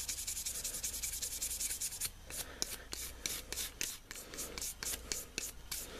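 Toothbrush bristles scrubbing toothpaste back and forth along a steel knife blade in quick strokes, to break up ground-in grime. The strokes come thick and fast, then more spaced out after about two seconds.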